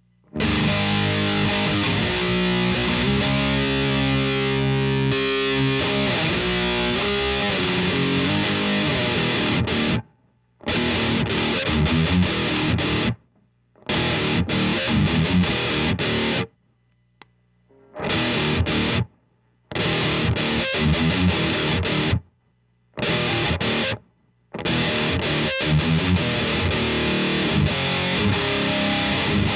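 Heavily distorted electric guitar played through a thiSHEAvyearth Grim distortion pedal, chugging metal riffs that stop dead several times for short silent breaks. A faint low hum sits under the breaks.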